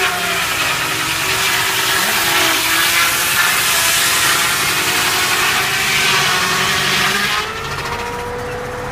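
Sawmill blade cutting through a log: a loud, hissing cut over a running engine that works under the load, stopping abruptly about seven seconds in while the engine keeps running.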